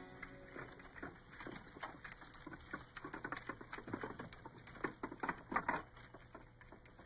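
Horse hooves clopping and a wooden covered wagon rattling as it rolls along: a rapid, irregular run of knocks, loudest a little past halfway and fading near the end.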